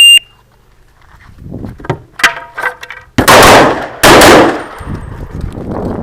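Shot timer beeps once to start the stage, then a string of pistol shots with the metallic clang of steel targets ringing. Two much louder blasts come about three and four seconds in.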